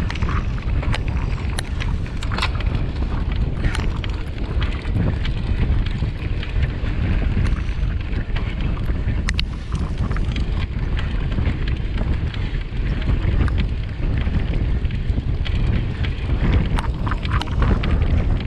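Wind buffeting the microphone of a camera on a mountain bike ridden at speed, a steady low rumble, with scattered clicks and rattles from the bike and tyres on rough trail.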